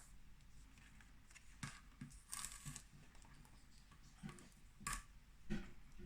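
Faint handling of paper and card: a few soft taps and a brief rustle about halfway through.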